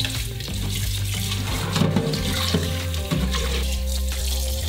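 Kitchen tap running in a steady stream onto blanched pork and chicken bones in a stainless-steel colander in the sink, splashing as the bones are rinsed by hand.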